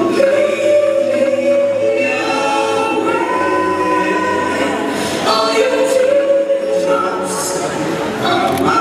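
Choir singing slow, long-held notes, with a new phrase starting about five seconds in.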